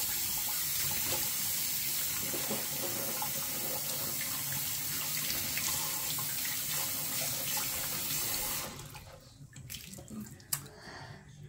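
Water tap running steadily into a sink, shut off about three-quarters of the way through, followed by a few small knocks.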